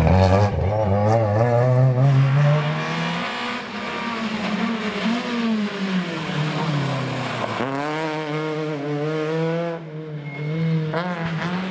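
Rally car engines at full throttle on a stage: one car's engine note falling away as it pulls out of a corner, then a Citroën C2 rally car accelerating past, its pitch climbing through the revs with a brief drop near the end.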